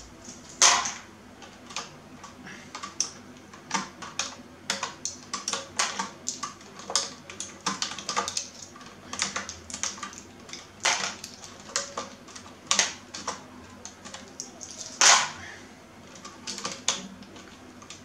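Keycaps being pulled off an Azio Retro Classic mechanical keyboard by hand: a run of sharp plastic clicks and snaps as caps come off their switches, with two louder snaps, one about a second in and another near the end.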